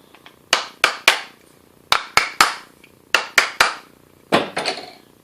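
A hammer tapping a bearing back along a shaft, about a dozen sharp taps in four quick groups of three, each with a brief ring. The bearing is being eased back to relax the squeeze between its inner and outer races so the shaft turns more smoothly.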